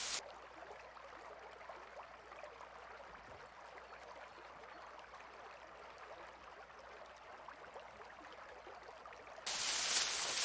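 Soft water sound made of many small drop-like ticks over a faint hiss. A much louder, fuller rush of water cuts in suddenly near the end.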